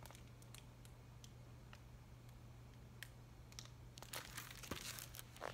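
Near silence over a low steady room hum, with a few faint clicks and paper rustles from a hardcover picture book being held open and handled, a little more of them about four to five seconds in.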